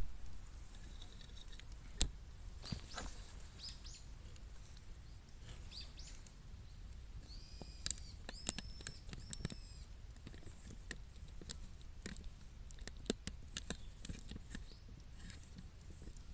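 Bamboo fire crackling with scattered sharp pops. A bird chirps a few times in the middle.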